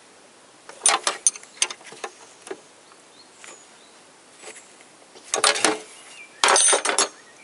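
Metallic clicking and clatter of a wrench working the nut on a windshield wiper motor's linkage shaft: a few sharp clicks about a second in, then two short runs of rapid clicking near the end.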